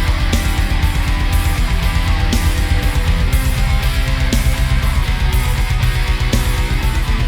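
Heavy rock music with distorted electric guitar, fast driving low end and steady drum hits.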